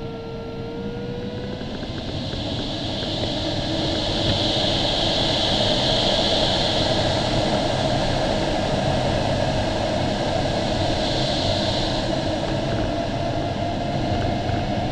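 Air rushing over the canopy of an LS-4a sailplane's cockpit in flight, a steady noise that grows louder about two to four seconds in and then holds. A faint, thin tone drifts slowly in pitch underneath.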